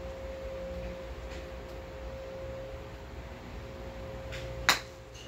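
A golf club strikes a ball off a driving-range hitting mat once, a sharp crack about four and a half seconds in, just after a faint swish of the downswing. A steady humming tone sounds underneath until the shot.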